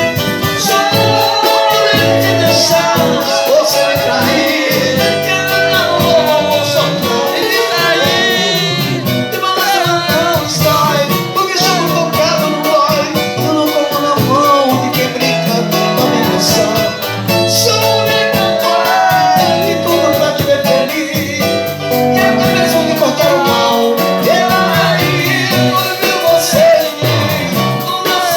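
Band music with a singing voice and guitar, playing steadily, the singer's held notes wavering.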